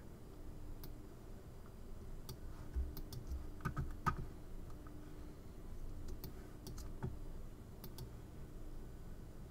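Faint, scattered clicks of a computer mouse and keyboard, about a dozen single clicks spread unevenly over several seconds, as anchor points are placed with the pen tool, over a faint low hum.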